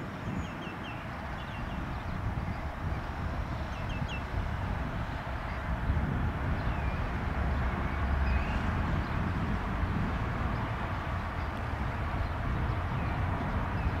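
The twin Williams FJ44 turbofans of a Cessna CitationJet CJ1 running at low power, heard from behind as a steady jet noise that grows a little louder about six seconds in. Small birds chirp a few times in the first few seconds.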